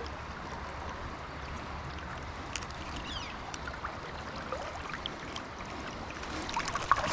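Steady rush of flowing river water, with a few faint ticks. Near the end, louder irregular splashing and knocks start up.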